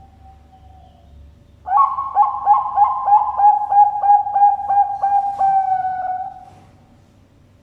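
Zebra dove (Bangkok perkutut) cooing: a faint note fading out at the start, then about two seconds in a loud run of about a dozen quick, clipped coos, roughly three a second, ending on a longer drawn-out note.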